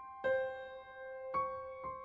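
Slow solo piano music: three notes struck one after another, each left to ring.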